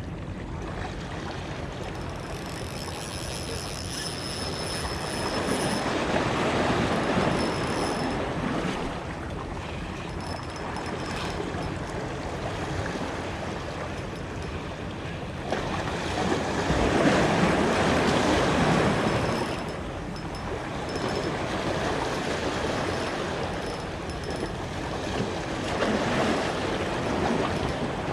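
Sea waves washing in, swelling and fading three times, over a steady wash of water and wind.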